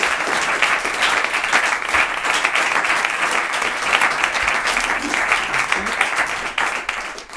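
Audience applauding with dense clapping, which fades out near the end.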